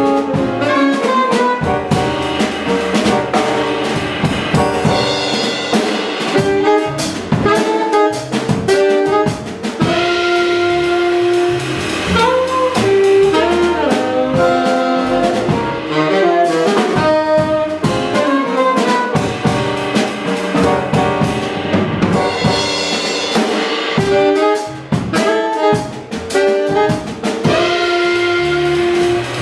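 Live jazz quintet playing: alto and tenor saxophones carry the melody together over piano, upright bass and drum kit.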